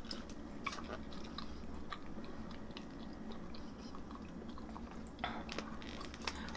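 Close-up chewing of a mouthful of cherry crumb pie, with small scattered clicks as a metal fork cuts into the pie in its plastic container.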